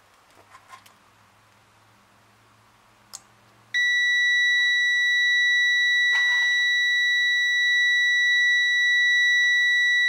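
A digital multimeter's continuity beeper comes on about four seconds in with a steady, unbroken high-pitched tone. It signals that the relay contacts have closed because the smoke detector sensed the match smoke. A few faint clicks come before it.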